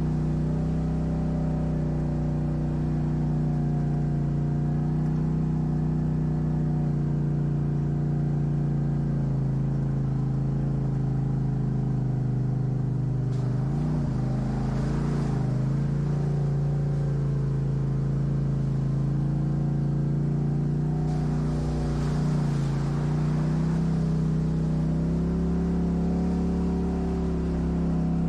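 Off-road vehicle engine running steadily at low revs, its pitch dipping and rising briefly about halfway through and again a few seconds later, with some hiss at those moments.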